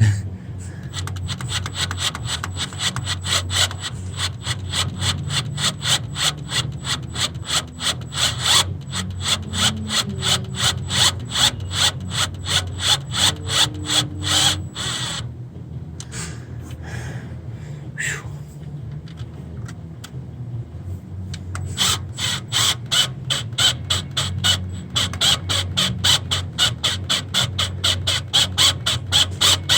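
Power drill running a left-handed bit into a seized EGR bolt on a 6.7 engine, with the bit chattering against the bolt in rapid, even clicks over a steady motor hum. The chatter fades for several seconds around the middle, then comes back strong.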